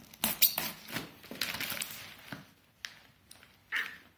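A blade slitting packing tape on a cardboard box in short scratchy strokes, loudest about half a second in, then the crinkle and rustle of a plastic label pouch being peeled off the box.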